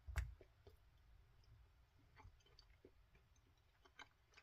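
Near silence broken by faint, scattered mouth clicks of someone chewing soft salt liquorice, with one slightly louder click just after the start.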